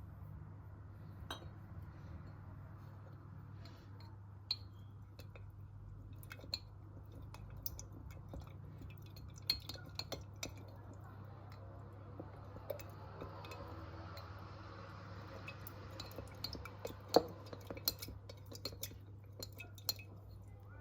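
Kitchenware clinking and tapping: utensils knocking against dishes and glass in scattered single taps, the sharpest about 17 seconds in, over a steady low hum.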